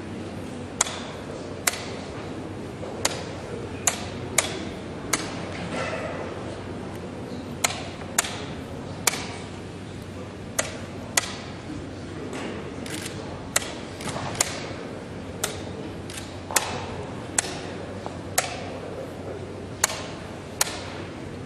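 Wooden chess pieces set down on a wooden board and chess clock buttons pressed during a blitz game: about twenty sharp clicks and knocks at an irregular pace, often in quick pairs, over a steady background murmur.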